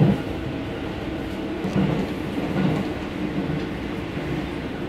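Electric passenger train running at speed, heard from inside the carriage: a steady rumble of wheels on rail with a few heavier low thumps.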